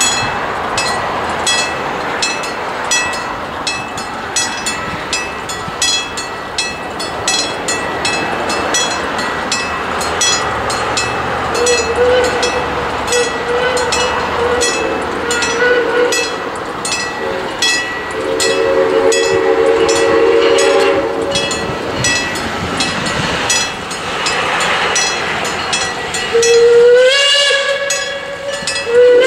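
Steam locomotive's bell ringing steadily, about two to three strokes a second, over the noise of the engine working. The steam whistle sounds in chords several times: short blasts about twelve seconds in, a longer blast around eighteen to twenty-one seconds, and a blast that slides up in pitch as it opens near the end.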